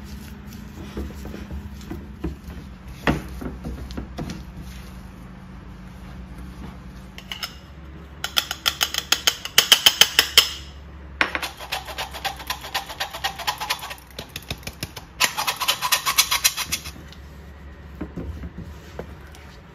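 Stainless steel flour sifter clicking rapidly in three bursts as its handle is worked and flour falls through the mesh. Before and after, a spatula scrapes and mashes butter and sugar against a glass bowl.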